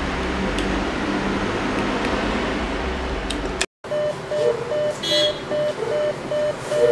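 Steady fan-like hum of an ATM booth with a few faint clicks. After a brief dropout a little over halfway through, the NCR ATM beeps repeatedly, about two to three short beeps a second, at the end of a completed PIN change.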